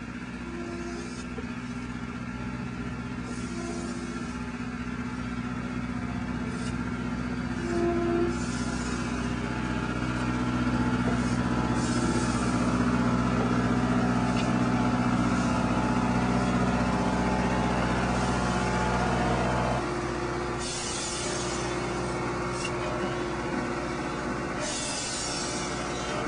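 A train's engine running steadily, growing louder over the first twenty seconds and then dropping back sharply.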